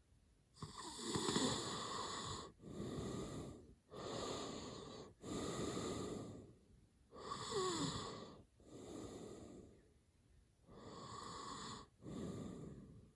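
A sleeping man snoring hard, with about four heavy in-and-out breaths, each a noisy rush of air lasting a second or so.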